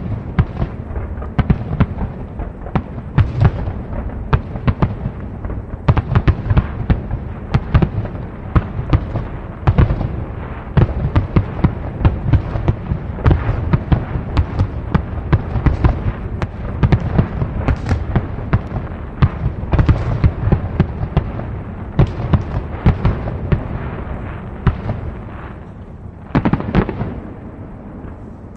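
Fireworks display in a dense finale barrage: aerial shells bursting in rapid succession, several loud bangs a second with crackling between them, easing slightly near the end before one last loud cluster.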